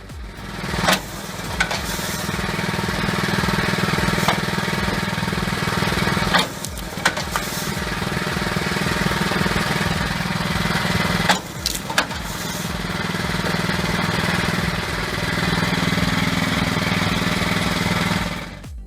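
Engine-driven homemade log splitter running steadily with a fast, throbbing drone, broken by several sharp knocks and cracks as wood is split.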